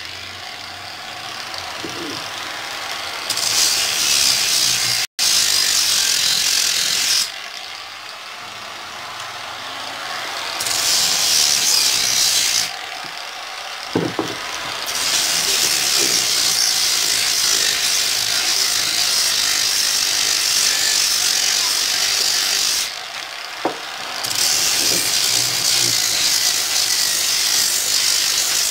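Electric random orbital sander sanding a pallet-wood (jati belanda) beam. Its gritty hiss swells over several passes of a few seconds each, the longest about eight seconds, and drops back to a lower running sound between them.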